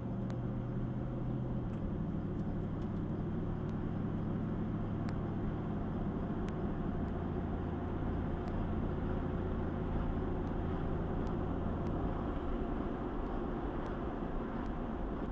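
Car engine and road noise heard from inside the cabin while driving: a steady drone whose pitch steps down slightly about two seconds in, with tyre and wind noise underneath.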